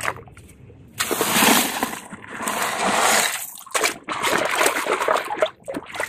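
Water splashing and sloshing as small plastic toy trucks are swished by hand through a shallow pool to wash them, in two rough stretches: one starting about a second in, and a shorter one after a brief pause.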